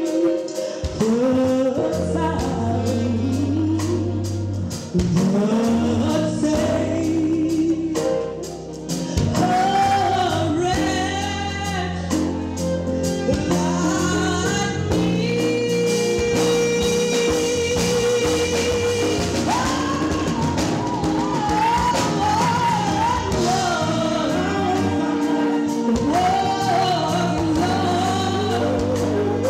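A live vocal group, a woman and men singing into microphones, performing a gospel-style song with flowing vocal runs over a keyboard-led band.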